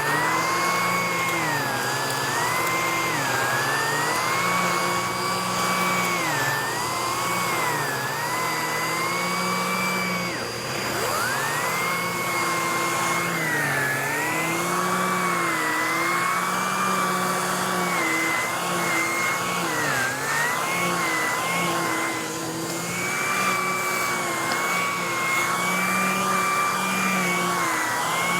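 Vacuum cleaner running continuously while sucking up loose dirt, its motor whine wavering up and down in pitch.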